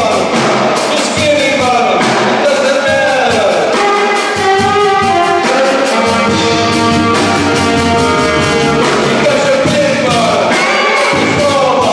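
Live jazz band of saxophones, upright bass and drum kit playing. The saxophones play swooping phrases, then hold a chord together in the middle, over a steady drum beat.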